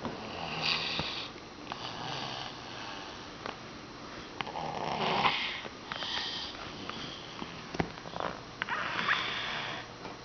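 Snoring of a sleeper in a chair: rough, snuffly breaths about every one to two seconds, the loudest about five seconds in, with a few short clicks between them.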